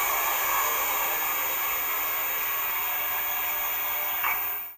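Sound decoder of a PIKO TT Class 55 steam locomotive model playing its injector sound: a steady hiss of steam that cuts off near the end.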